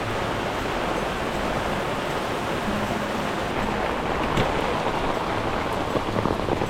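Heavy tropical rain falling, a steady even hiss.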